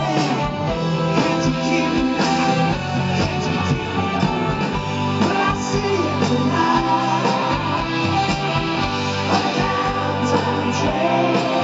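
Live rock band playing an instrumental stretch of a song, with guitars and drums over a steady bass line, heard from the audience.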